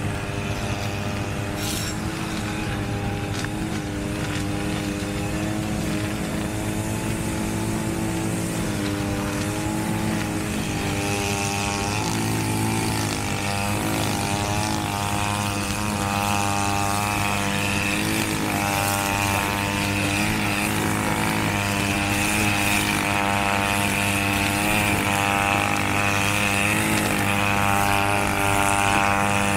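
A small engine running steadily, its pitch wavering up and down and its sound slowly growing louder.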